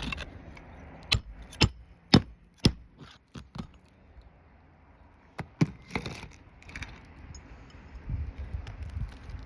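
Nails being driven to fasten an asphalt roofing shingle. There are four sharp strikes about half a second apart, then two more quick ones about five and a half seconds in.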